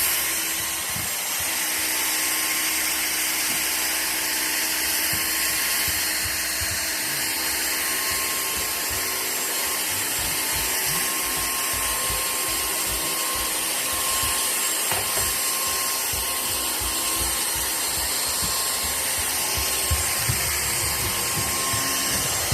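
Vacuum cleaner running steadily, a loud rushing hiss with a constant high motor whine, and irregular low knocks underneath.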